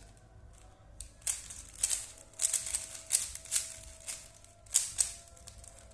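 Plastic Rubik's Cube layers being turned in a quick run of clicking, rattling twists, with a short pause before the last couple of turns.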